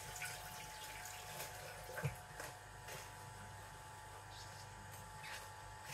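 Nama J3 cold press (slow masticating) juicer running with a quiet, steady hum as it slowly grinds vegetables, with juice trickling from the outlet into a jug and a few light knocks, the sharpest about two seconds in.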